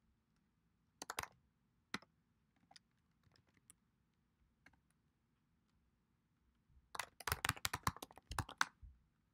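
Keystrokes on a computer keyboard: two separate presses, then scattered light taps, then a quick run of keystrokes about seven seconds in as a password is typed at a sudo prompt.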